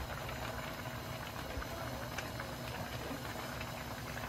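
Steady low background noise with a faint even hum, no distinct events.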